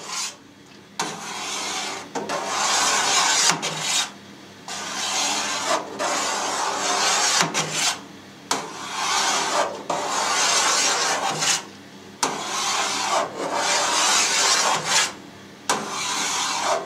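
Long knife drawn again and again through set cheese curd in a stainless steel pan, the blade scraping along the metal: about nine separate scraping strokes, each lasting a second or two. This is the curd being cut into strips, perpendicular to the earlier cuts.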